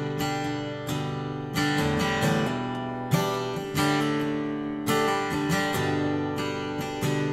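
Acoustic guitar strummed in a steady rhythm, each chord ringing on between strokes, with no singing over it.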